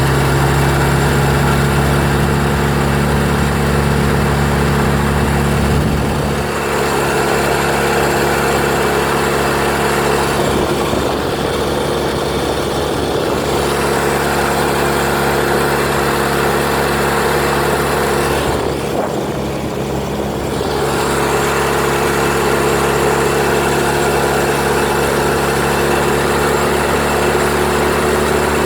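Honda 10 hp four-stroke outboard motor running steadily. Its note changes about six seconds in, and it eases off in level twice, near the middle and about two-thirds of the way through.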